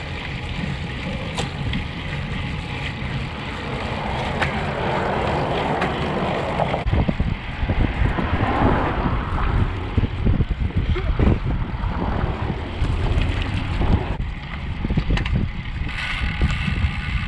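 Wind buffeting the microphone of a camera riding on a road bike at speed, a rumbling rush that grows gustier about seven seconds in.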